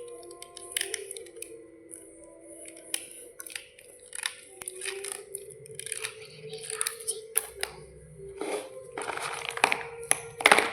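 Crisp crunching and scraping strokes from brittle slate bars, coming at irregular intervals and growing denser and louder near the end.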